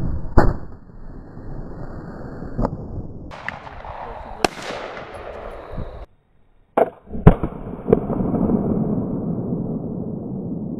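Flintlock muzzleloading rifles firing black powder: several sharp shots, the loudest about seven seconds in, followed by a long rumble near the end.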